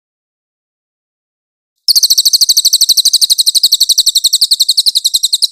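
Cililin bird singing a fast, high-pitched trill of evenly repeated notes, about twelve a second, starting about two seconds in after a pause.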